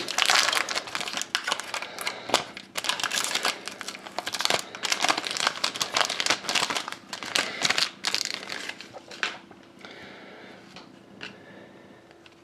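Foil wrapper of an Upper Deck SP Game Used hockey card pack being torn open and crinkled by hand as the cards are slid out. The dense crackling dies down after about eight seconds, leaving a few soft clicks and rustles.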